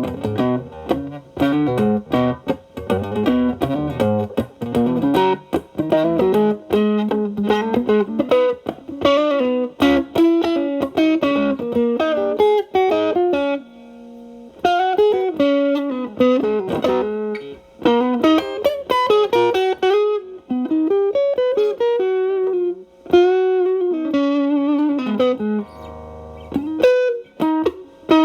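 Electric guitar, a Telecaster with alnico single-coil pickups, through an MXR Distortion+ stacked with a Boss SD-1 into a Marshall Valvestate's clean channel, playing single-note lead phrases. The drive is cleaned up, so the notes are only lightly distorted. There are short pauses about halfway through and again near the end.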